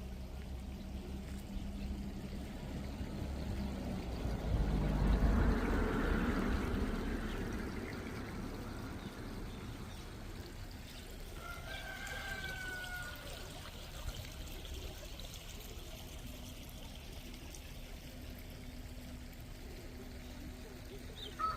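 A rushing noise that swells for a few seconds about a quarter of the way in, then settles to a low hiss. About halfway through, a rooster crows once, faint and distant.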